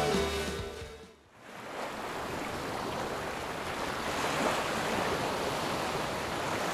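Music fades out in the first second, and then a steady rushing of wind and sea water takes over.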